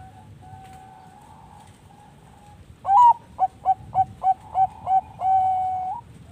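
Zebra dove (perkutut bangkok) singing its cooing song. A loud opening coo comes about three seconds in, then a rhythmic run of about six short coos, ending in a long drawn-out note that lifts at the very end. Fainter cooing is heard in the first half.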